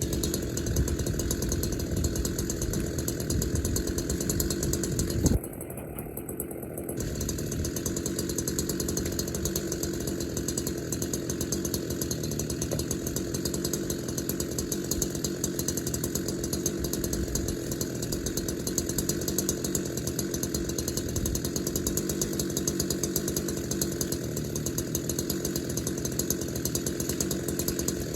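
Chainsaw engine running steadily, briefly dropping away about five seconds in.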